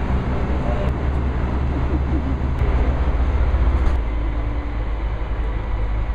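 Steady low rumble of a cruise ship's open-deck ambience, with the low band shifting about four seconds in.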